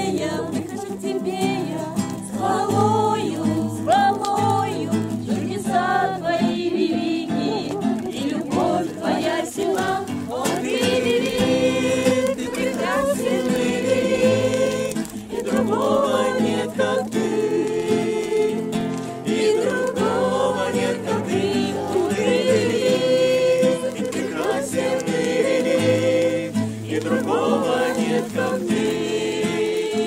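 A group of men and women singing together to an acoustic guitar.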